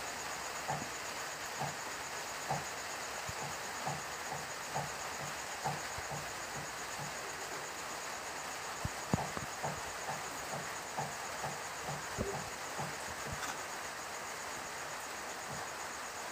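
Steady high insect trill over a background hiss, with a soft low pulse repeating about once a second.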